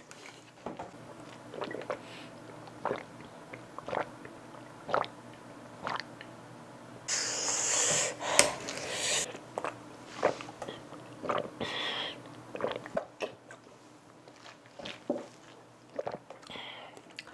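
A person sniffing and breathing hard through the mouth against the burn of extremely hot chili peanuts, with scattered small clicks and taps of handling. A longer breathy rush comes about seven seconds in and lasts about two seconds.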